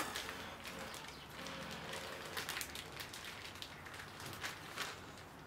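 Clear plastic bag of cooked octopus being handled with gloved hands: faint rustling and crinkling, with a few small crackles.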